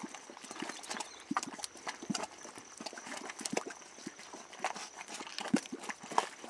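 Boiling mud pot: thick mud bubbling and bursting in irregular pops and plops.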